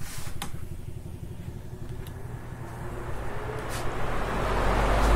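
Spray booth exhaust fan switched on and spinning up: a rushing air noise that builds steadily from about three seconds in and stays loud. A few light clicks come earlier.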